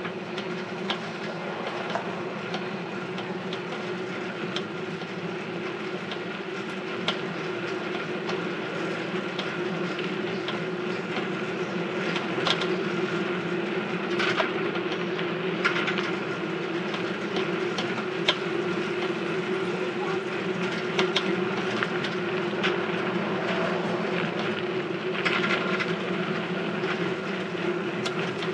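Rented bicycle being ridden, its drivetrain giving a steady whirring drone with a held higher whine and frequent small clicks and rattles: the cycle is a bit noisy.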